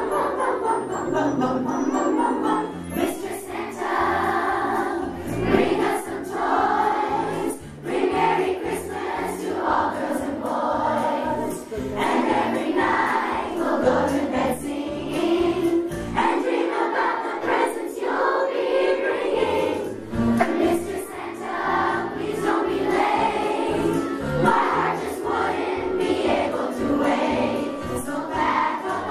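Children's choir singing a Christmas song over a musical accompaniment with a steady beat and jingle bells.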